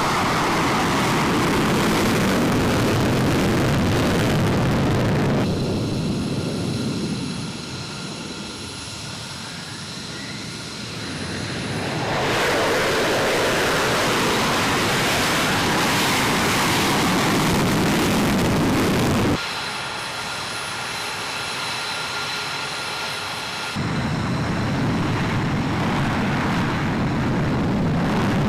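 F-35A Lightning II jet engine noise, edited from several shots. Loud jet roar gives way abruptly to quieter stretches where the engine's high turbine whine stands out, about five seconds in and again about two-thirds of the way through.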